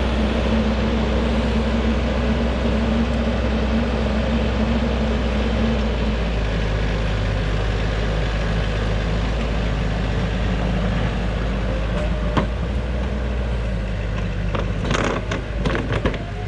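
Heavy vehicle engine running steadily under load, its pitch dropping about six seconds in, with a few sharp knocks and clunks near the end.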